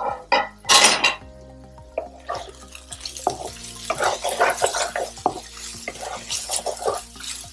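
Two loud clatters in the first second, then a spatula stirs and scrapes cooked spiny gourd around a non-stick frying pan in a quick, continuous run of scrapes.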